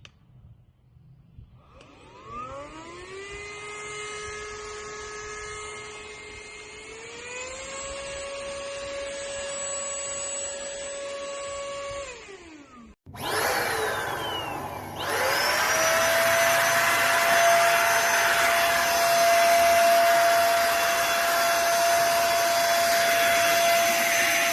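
Simplus 400 W cordless vacuum cleaner's motor spins up to a steady whine and steps up in pitch about seven seconds in, then winds down. After a break it runs again, louder, with a steady high whine over rushing air from its suction.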